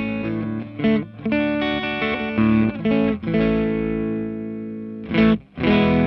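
Electric guitar played through a BadCat Lynx 50 valve amp head's high-gain distorted channel. Chords change several times, one is left to ring and fade about halfway, then a short stab, a brief break and a new chord near the end.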